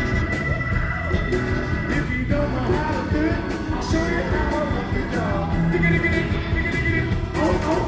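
Live rhythm-and-blues band playing, with a wavering melodic lead line over steady drums, cymbals and bass.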